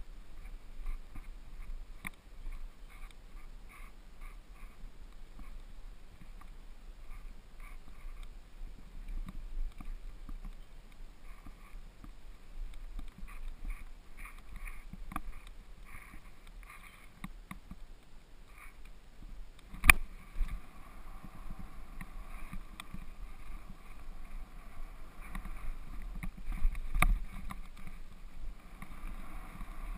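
Specialized Stumpjumper FSR full-suspension mountain bike descending a gravel trail: a steady rumble of tyres on loose gravel, with the bike rattling and knocking over bumps. The loudest is a sharp jolt about two-thirds of the way through, with a few more hard knocks near the end.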